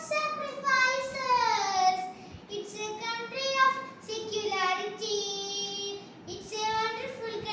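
A young girl singing solo, holding long notes that slide up and down in pitch between short breaths.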